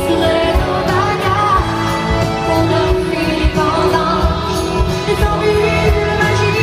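A female lead singer sings a pop ballad live into a microphone over a full band with electric guitar and a steady drum beat, heard through an arena's PA system.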